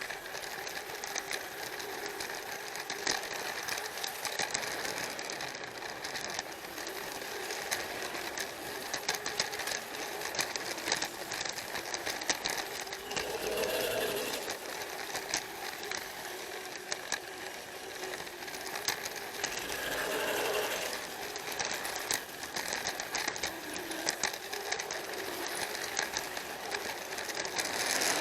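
Plarail toy train running on plastic track: the small battery motor and gearbox whirring steadily, with the plastic wheels clicking rapidly over the track joints.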